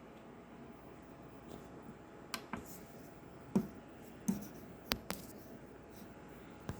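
A handful of short, light clicks and taps, about seven spread over the last few seconds: the DC output button on an EcoFlow Delta Mini portable power station being pressed and the unit handled.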